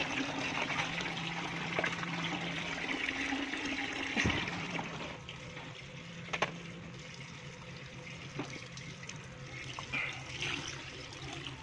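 Tap water running into a plastic bucket, with splashes and sloshing as clothes are washed by hand in it. The rush of water is loudest for the first four seconds or so, then softer.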